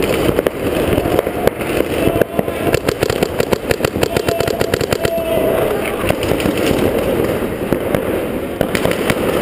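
Paintball markers firing rapid strings of popping shots, thickest from about two to five seconds in, over a steady low rumble.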